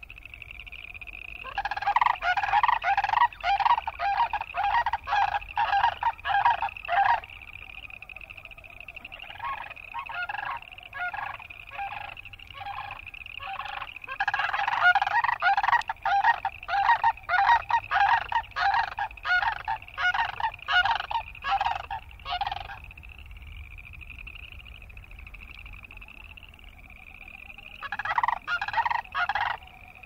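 Sandhill cranes calling in long bouts of quickly repeated loud notes, about three a second, which fade and return several times. Behind them boreal chorus frogs keep up a steady chorus of short rising trills.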